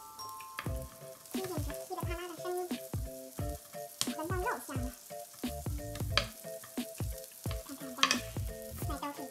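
Small wooden rolling pin rolling out dough on an end-grain wooden board, with repeated short knocks and rolling scrapes. Underneath, background music with long held notes and a wavering melody.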